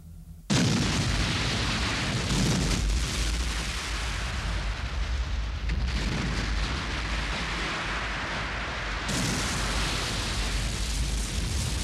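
Cartoon battle sound effects: a sudden blast about half a second in, then continuous explosions and heavy rumbling.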